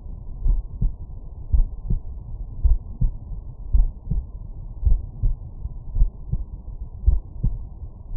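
Human heartbeat heard through a stethoscope at the mitral area: a steady lub-dub at about one beat a second, muffled, with deep low thumps.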